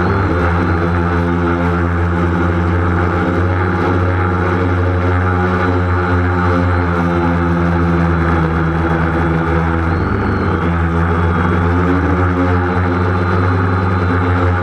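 Multirotor camera drone's electric motors and propellers whirring steadily, close to the onboard camera. The pitch dips and comes back up about ten seconds in.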